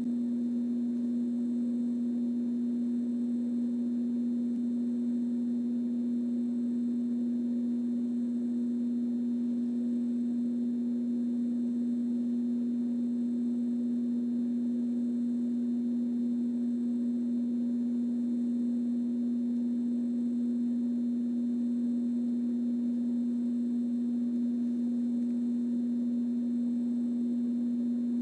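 A steady electrical hum: one low, constant tone with fainter overtones above it, unchanging throughout.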